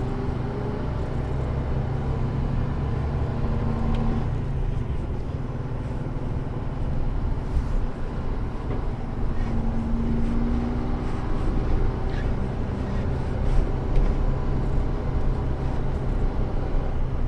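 Mercedes-Benz Antos 1824 18-tonne lorry's diesel engine running while driving, heard from inside the cab as a steady low rumble with road noise, and a few short knocks about two-thirds of the way through.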